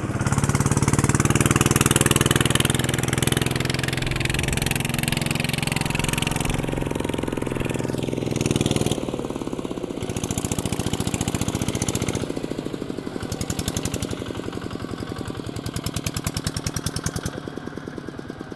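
Single-cylinder Kubota RT140 diesel engine of a home-built plough tractor running under load while it churns through wet paddy mud with a disc plough. About nine seconds in the sound drops and the separate firing strokes stand out more clearly.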